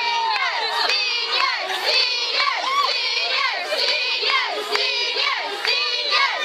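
A large crowd of young women shouting and cheering, many high voices overlapping in short rising and falling calls.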